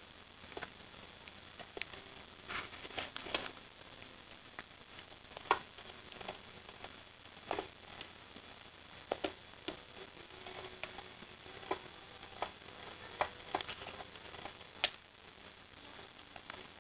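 Irregular light clicks and taps as a cat bats at a battery-powered cat teaser toy that twitches about erratically.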